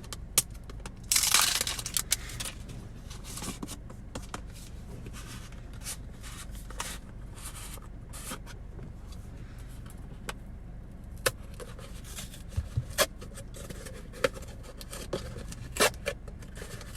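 Opening and handling a plastic tub of pre-workout powder: a tearing rasp about a second in, then scattered clicks and scrapes of the plastic container.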